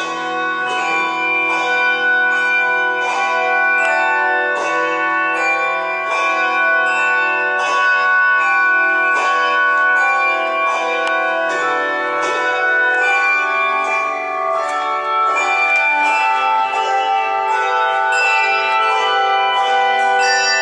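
Handbell choir playing, the bells struck in a steady pulse of about two strikes a second, their ringing tones overlapping and sustaining.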